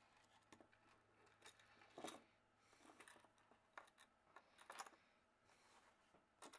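Faint handling noise: a scatter of light, irregular clicks and rustles, a little louder about two seconds in and again near the end.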